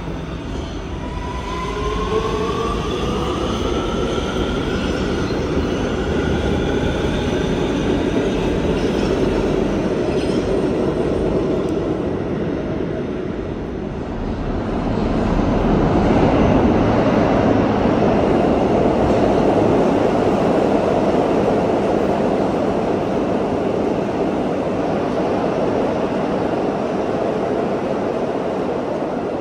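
R211A New York City subway train picking up speed, its propulsion giving a rising whine in several parallel pitches over the rumble of wheels on rail. After a dip about halfway through, a louder, even rumble of a train running past on the rails takes over.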